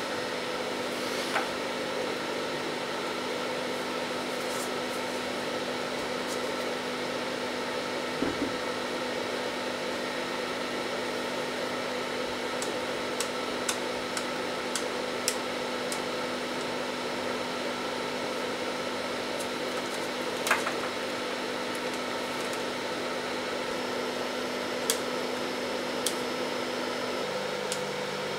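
Steady machine hum with an even hiss running throughout, with a dozen or so short, sharp clicks scattered through it.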